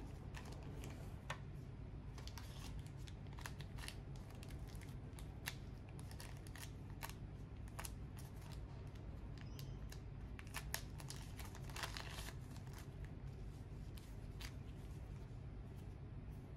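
Crinkling and rustling of a thin plastic packaging bag handled and opened by gloved hands, in scattered sharp crackles over a steady low hum.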